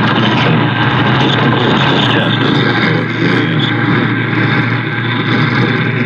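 Pioneer car stereo's AM tuner on 1540 playing a weak, noisy station. Steady static and a low hum sit over faint, muffled programme audio.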